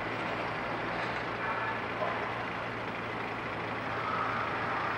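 Steady background noise of distant road vehicles, with a faint constant low hum and a few faint brief tones.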